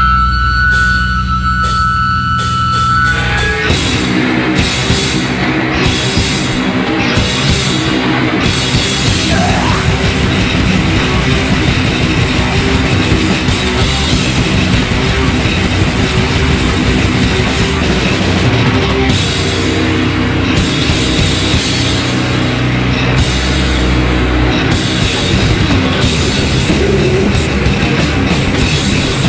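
Heavy metal band playing live: two electric guitars, bass guitar and drums. It opens on a held high tone over low bass notes, and the full band comes in about three and a half seconds in.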